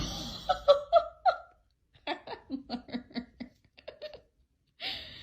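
A person laughing in short bursts, with a quick run of about ten rapid 'ha' pulses in the middle.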